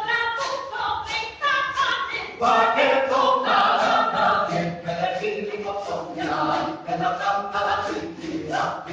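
Several voices singing a Castilian threshing song together over a steady beat of percussion strokes.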